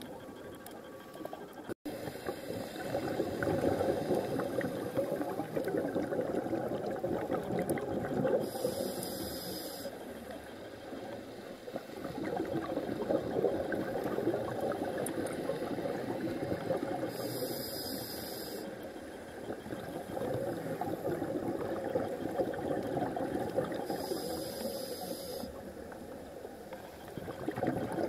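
Underwater sound of a diver's breathing: a crackly gurgle of exhaled bubbles that swells and fades in a slow cycle. A brief high hiss from the breathing regulator comes three times, about eight seconds apart.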